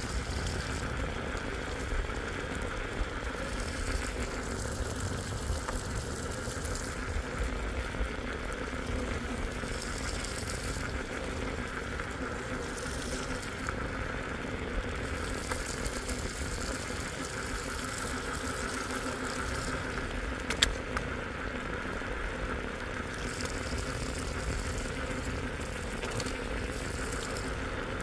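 Vehicle driving on a wet road in the rain: a steady low rumble and engine hum under the hiss of rain and wet tyres, which swells and fades now and then. A single sharp click comes about three-quarters of the way through.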